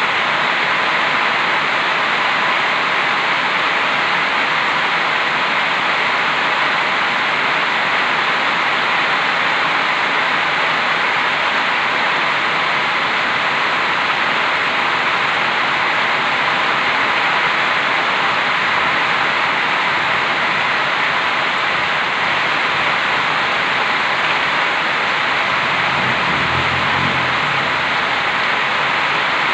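Heavy tropical rain pouring steadily, a dense, even hiss of downpour. A brief low rumble comes in near the end.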